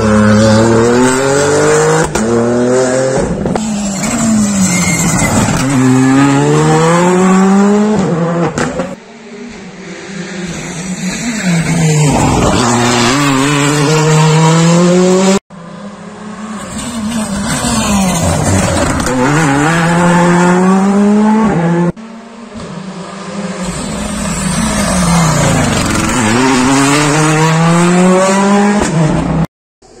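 Rally cars at full throttle passing one after another, the engine note climbing and dropping back with each gear change.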